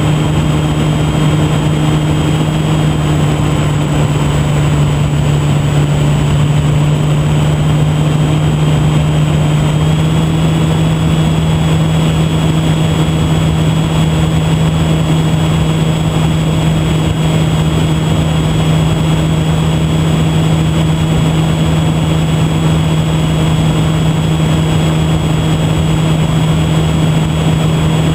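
E-flite Park 480 electric motor turning the propeller of a HobbyZone Super Cub RC plane in flight, a steady hum and whine heard from on board with wind rush over it. The pitch steps up slightly about ten seconds in as the throttle changes.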